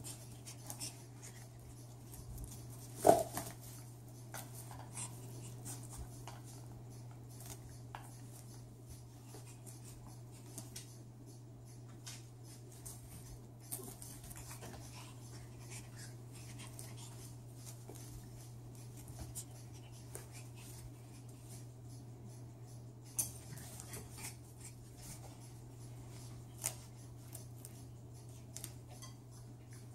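A pet raccoon clawing and scrambling on a carpet-and-sisal cat scratcher: scattered scratches, scrapes and light knocks, with one loud knock about three seconds in. A steady low hum runs underneath.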